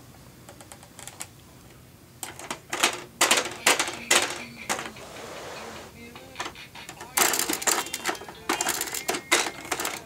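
Baby's hands slapping and pressing the plastic keys and buttons of an activity toy: a run of sharp plastic clacks and clicks that starts about two seconds in and gets busier over the last three seconds, with a short rattling stretch near the middle.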